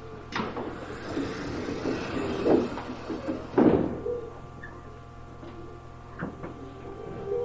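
Keio 8000 series commuter train's sliding doors closing, heard from inside the car: a rush of air and rumble lasting about three seconds, ending in a heavy thud as the doors shut, with no door chime. A low steady hum from the stationary car follows, with a couple of faint clicks.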